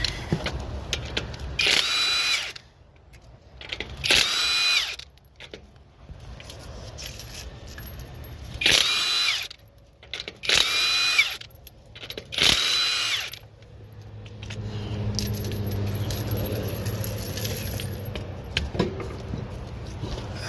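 Impact wrench spinning lug nuts on a car wheel: five short whirring bursts of about a second each, one per nut. Near the end comes a steady low hum.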